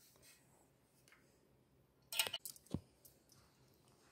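A quick cluster of small clicks and clinks a little over two seconds in, ending with a sharper knock: screws and washers being handled in a steel magnetic parts tray.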